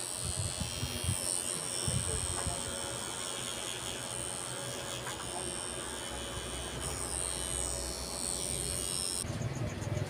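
Tattoo machine running steadily with an electric hum and high whine as the needle inks skin, cutting out about nine seconds in.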